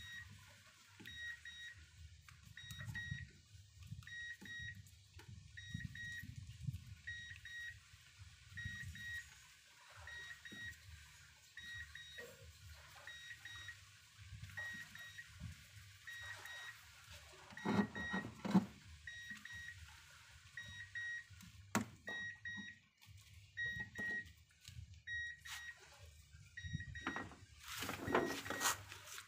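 A car's electronic warning chime sounding short high beeps at a steady, even pace, over handling noises from wiring work, with louder knocks and rustles about two-thirds of the way in and again near the end.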